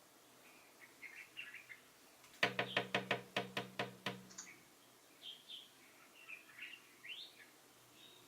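Collared finchbill pecking at a window pane: a quick run of about nine sharp knocks, roughly five a second, with a low ringing of the glass. Short chirping calls come before and after the knocks.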